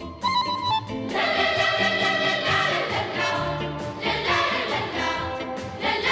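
Intro music: a short instrumental phrase, then a choir singing in with a full, steady sound about a second in.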